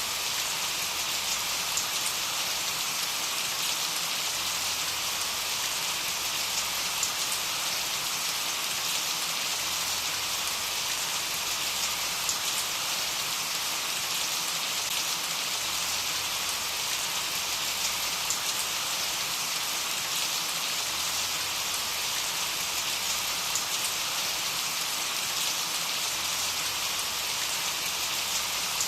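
Steady rainfall, an even hiss of rain with faint scattered drop ticks, unchanging throughout.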